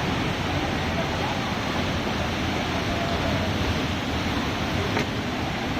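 Steady loud rushing noise with no clear rhythm, and a single sharp click about five seconds in.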